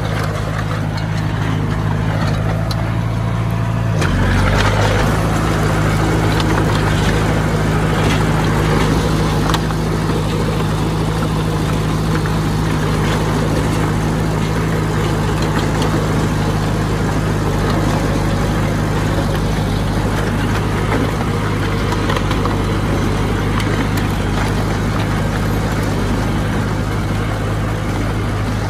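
Heavy earthmoving machine's diesel engine running steadily. About four seconds in, its note shifts and gets louder for a few seconds, as under more load or throttle.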